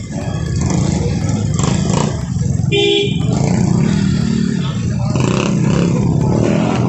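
Motorcycle engine idling close by in street traffic, a steady low rumble, with a short horn beep about three seconds in. Voices in the background.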